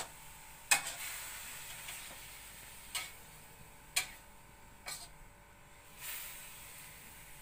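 About four sharp, scattered clicks, the first the loudest, over a faint steady hiss.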